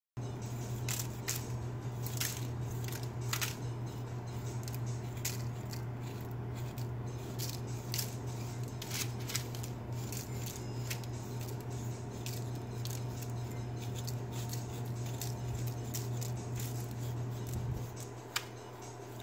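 A metal spoon scraping and tapping at the salt crust on roasted pork belly skin in a foil-lined tray: a run of sharp, scratchy clicks that thin out in the second half. A steady low hum runs underneath.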